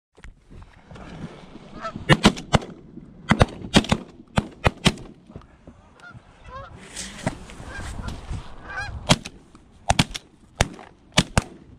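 Wild geese honking while shotguns fire many loud shots in quick, irregular succession, several hunters shooting at once.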